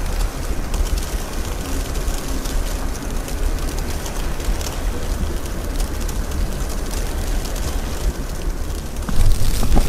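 Strong wind buffeting the phone's microphone in a snowstorm: a steady, heavy rumble with a rushing hiss. It gets louder about nine seconds in as a stronger gust hits.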